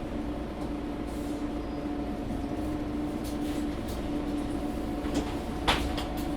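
Inside a Mercedes-Benz O530 Citaro G articulated bus: the bus runs with a low rumble and a steady hum. A sharp clack and brief rattle come near the end.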